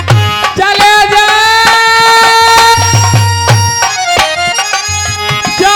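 Traditional Indian folk music from a dhola performance: a reedy instrument holds long melody notes over a hand-drum beat that drops out for a couple of seconds and then returns.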